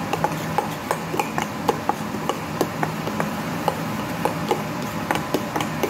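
Spoon clicking and scraping against a stainless steel mixing bowl while stirring a creamy sauce, in quick irregular taps about three a second.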